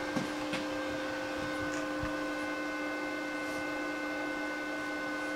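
Steady electric hum from shop machinery, several even tones held without change, with a few faint ticks.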